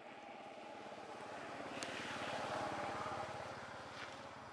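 A motor vehicle's engine passing by, swelling to a peak about halfway through and fading again. A sharp click sounds just under two seconds in.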